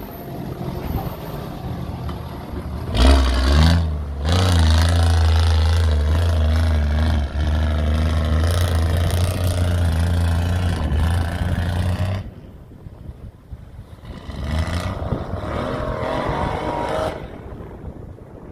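Nissan Patrol K160's engine running low, then revving up hard at about three seconds and pulling steadily under load until it drops back at about twelve seconds. A second, shorter burst of throttle follows near the end.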